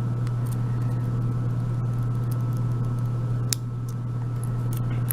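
Small, faint clicks and ticks from handling the lock cylinder's pins and springs, over a steady low hum.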